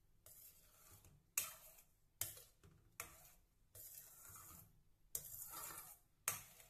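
Spoon stirring and scraping through thick potato masala in a cooking pan, with four sharp knocks of the spoon against the pan.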